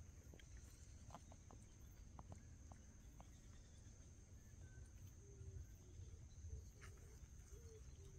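Near silence: faint outdoor ambience with a steady high-pitched hum, a low rumble and a few faint ticks.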